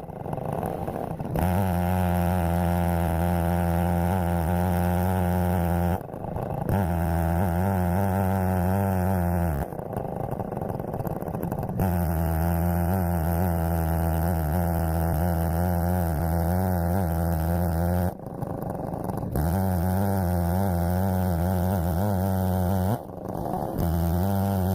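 Big-bore two-stroke chainsaw (a Holzfforma clone of the Stihl 070) running at steady high throttle on an Alaskan chainsaw mill, ripping a cherry log into boards. The steady engine note breaks off briefly several times.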